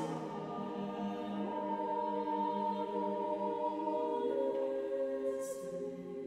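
Unaccompanied choir singing long, sustained chords, with the reverberation of a large church nave; some voices drop out about four seconds in, and a sung 's' consonant hisses about five and a half seconds in.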